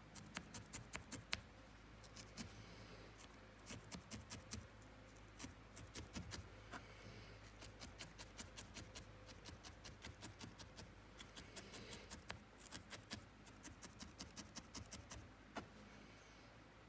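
Felting needle stabbing repeatedly into a wad of wool: faint, quick clicks in runs of several a second, with short pauses between runs.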